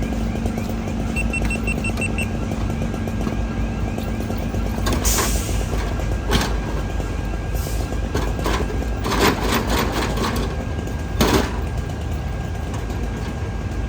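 Steady low rumble of idling fire-truck engines. About a second in there is a short run of quick high beeps, and several sharp knocks and clatters come in the second half.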